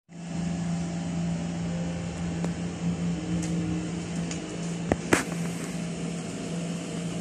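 Steady low machine hum with a noise haze, like a ventilation or air-conditioning unit running in the room, broken by two sharp clicks a little after halfway.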